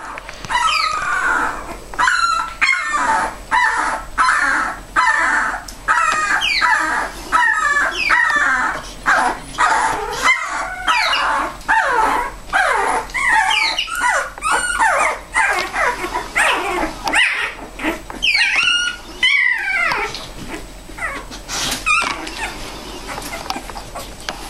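A litter of young boxer puppies crying: a near-continuous run of short, high-pitched whining cries that slide up and down in pitch, several pups overlapping. The cries die down for the last couple of seconds.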